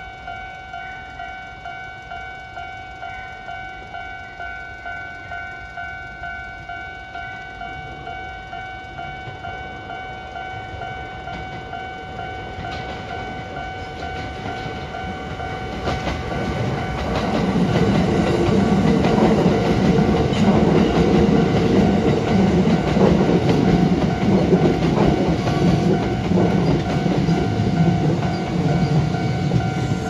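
Railway level-crossing warning bell ringing steadily, a little more than one strike a second. From about sixteen seconds in, a Kintetsu 2410 series electric train passes, and its wheels rumble loudly on the rails through the second half.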